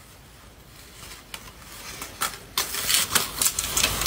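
Scattered sharp clicks and crackles, faint at first and becoming louder and more frequent from about halfway through.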